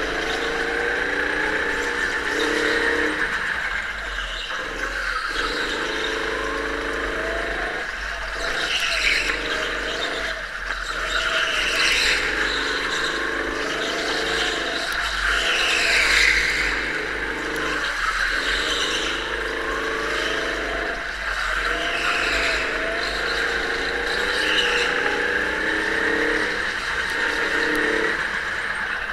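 Onboard sound of a go-kart lapping: the motor's note rises along the straights and drops away briefly as it slows for each corner, several times over. Tyres squeal through a number of corners, most strongly around the middle.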